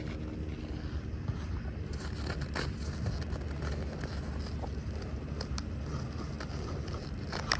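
Steady low rumble of wind on the microphone, with a few faint scrapes and ticks from a dog moving on crusted snow.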